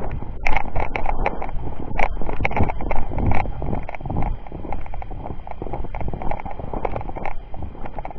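Footsteps of a person walking briskly over the ground, an uneven run of knocks with a few louder ones in the first few seconds.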